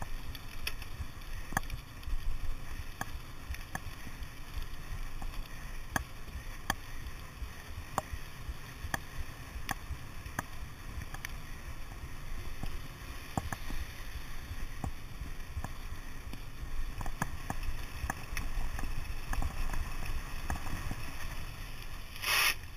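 Wind rushing over the camera microphone and tyres rolling on tarmac as a mountain bike descends a lane at speed, with a sharp tick about every second from the bike rattling over the road. Near the end there is a short, loud hiss.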